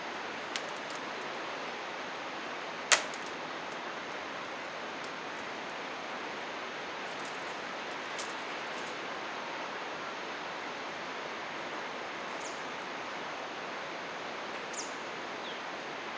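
Steady rush of flowing water, with one sharp, loud click about three seconds in and a couple of faint clicks around it. A few short, high, falling bird chirps near the end.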